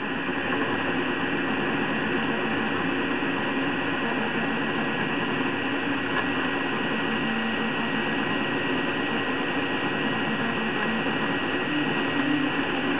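Prusa i3 3D printer printing: the hotend's cooling fan blows with a steady whooshing hiss close by, under a fainter hum that shifts in pitch as the stepper motors move the print head.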